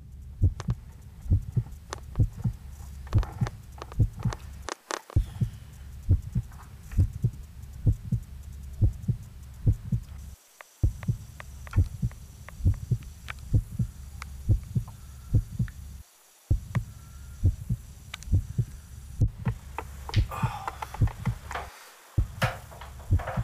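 A steady low hum with sharp, regular thumps about two a second, like a heartbeat. It cuts out completely for a moment about every five and a half seconds.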